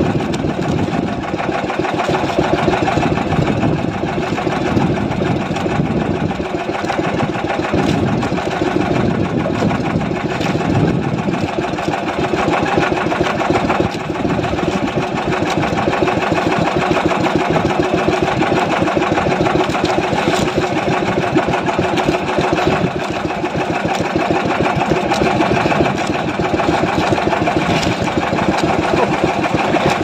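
Small boat engine running steadily at a constant speed, with a rapid, even beat of firing pulses.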